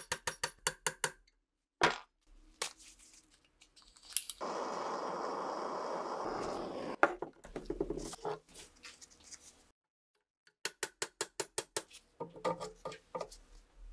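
Quick runs of light hammer taps on a steel pin punch, driving pins out of an old rifle's steel receiver and rear sight. In between, a gas torch flame hisses steadily for a few seconds while heating the receiver, followed by some scraping of metal.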